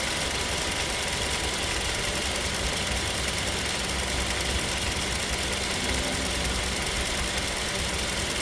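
2007 Toyota Tacoma engine idling steadily, with the AC compressor clutch disengaged and the compressor no longer spinning.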